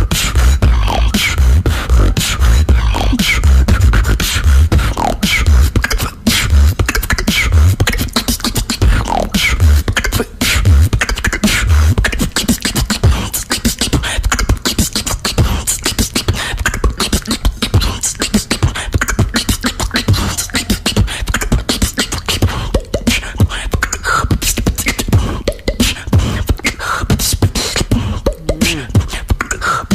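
Female beatboxer performing a solo routine with the mouth: rhythmic kicks, snares and clicks over deep bass, with lip-roll bass, the deep bass heaviest in the first dozen seconds.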